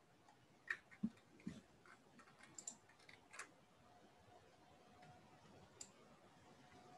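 Near silence with a handful of faint, scattered clicks and taps, and a faint steady hum that comes in about halfway through.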